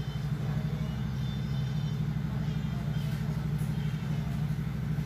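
A steady low mechanical hum, like an engine or motor running.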